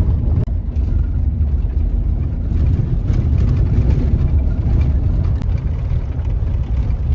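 Pickup truck driving on a sandy, washed-out dirt road, heard from inside the cab: a steady low rumble of engine and tyres.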